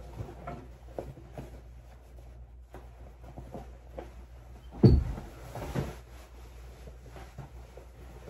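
Clothes being handled and put on: fabric rustling with scattered small knocks. One sharp thump about five seconds in is the loudest sound.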